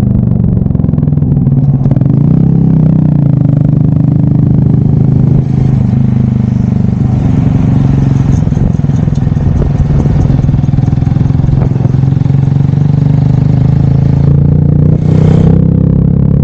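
Honda Monkey 125's single-cylinder four-stroke engine running steadily under way, heard from an onboard camera together with wind and road noise. A short rushing noise comes about fifteen seconds in.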